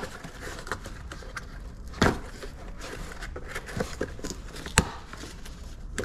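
Small hardware parts and packaging being handled: scattered light clicks and rustling, with two sharper knocks about two seconds in and near five seconds.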